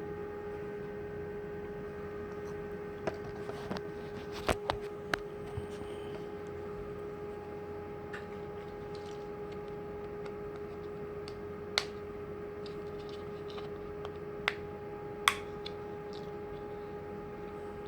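Scattered sharp clicks and taps of small metal lock parts and tools being handled on a workbench, a cluster a few seconds in and single ones later, over a steady electrical hum.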